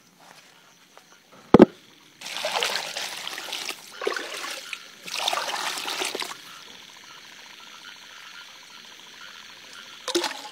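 A sharp thump about one and a half seconds in, then three bursts of splashing, trickling liquid, about a second each, as the indigo and lime water are worked; a faint steady hiss follows, and another knock near the end.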